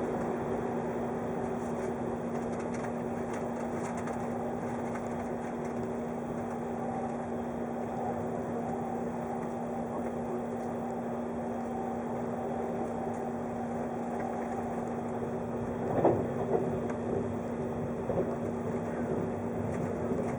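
Steady running noise of a 583-series electric train heard from inside the car, with a steady hum under it. About three quarters of the way through comes one sharp loud knock, then a few smaller ones.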